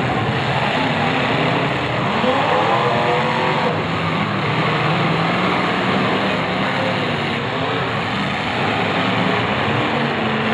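Several demolition derby cars' engines running and revving at once, their pitches rising and falling in overlapping glides over a steady mass of engine and exhaust noise.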